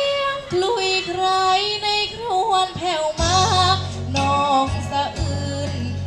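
Young girl singing a Thai song into a microphone, holding long notes with wavering pitch and glides. A backing track with a low bass line comes in strongly about three seconds in.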